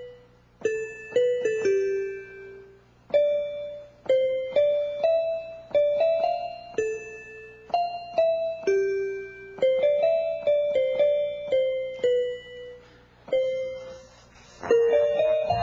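Piano-voiced electronic keyboard picking out a slow melody one note at a time, each key struck by a bouncing rubber ball. Every note sounds sharply and fades away. Near the end a fuller passage of overlapping notes with low tones comes in.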